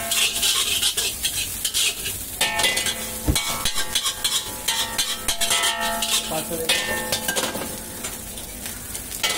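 A metal spatula scrapes, tosses and clanks against a large wok of egg fried rice, over a steady sizzle, with one heavier knock about three seconds in. The strokes thin out and grow quieter near the end.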